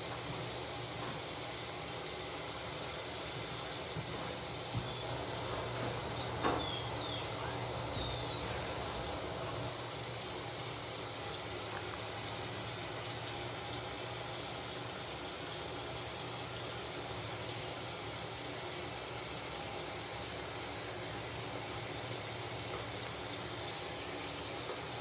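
Bathroom sink tap running in a steady rush, under a low steady hum.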